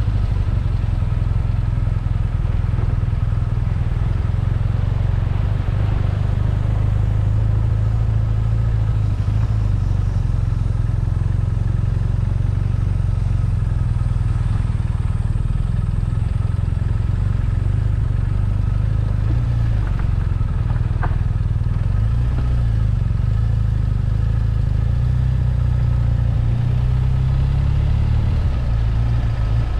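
BMW R1250RT's boxer-twin engine running steadily under way, with a low, even rumble and road noise.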